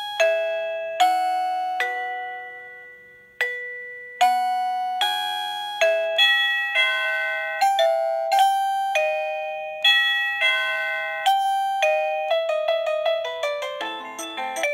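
Esonstyle wireless doorbell receiver playing its built-in ringtones one after another: electronic bell-like notes, each struck and fading away, strung into short tunes. The first few notes are slow and spaced out, and a faster melody begins about four seconds in, with the notes coming quicker still near the end.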